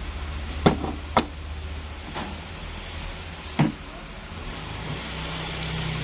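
Four short, sharp clicks over a steady low hum. The loudest two come about a second in and the last one a little past halfway.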